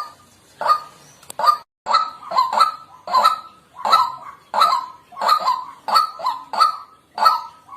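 White-breasted waterhen calling: a steady run of loud, harsh, honking notes, about two a second, some coming in quick pairs.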